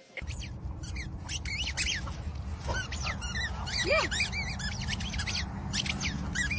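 Wind buffeting the microphone in a steady low rumble, with a string of short high squeaks and chirps over it.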